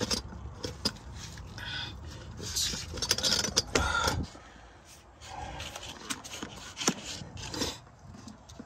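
Irregular handling noise while working under a pickup truck: a few sharp clicks and short scraping rustles, busiest a few seconds in.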